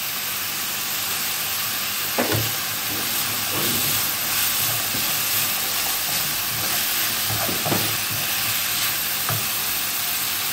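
Diced turkey and onion sizzling in oil in a non-stick frying pan, a steady hiss. A wooden spatula stirs it, scraping and knocking against the pan a few times.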